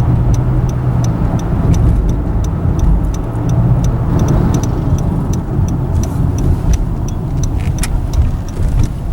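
Car driving, heard from inside the cabin: steady tyre and engine rumble, with a light regular ticking at about three ticks a second.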